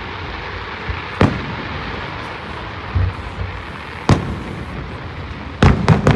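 Fireworks shells bursting: single sharp bangs about a second in and about four seconds in, a lower thud around three seconds, then a quick run of three or four bangs near the end, over a steady background hiss.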